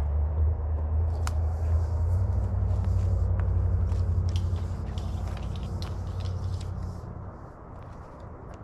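A motor vehicle's engine runs as a low drone that swells and then fades out about seven seconds in. Light clicks and rustles sit over it.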